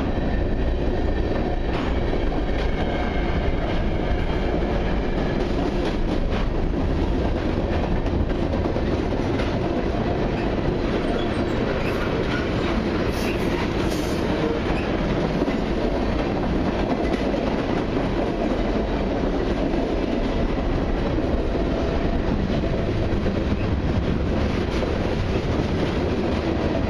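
Freight train's hopper and tank cars rolling past close by: a steady rumble of steel wheels on the rails, with wheels clattering over rail joints.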